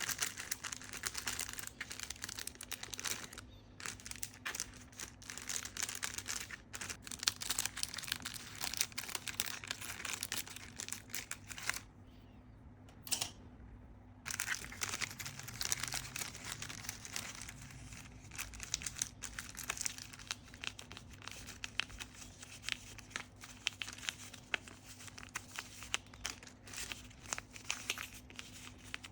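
Fingers working the crinkly parts of a homemade fidget board: dense, continuous crinkling and rustling, with a brief lull about halfway through.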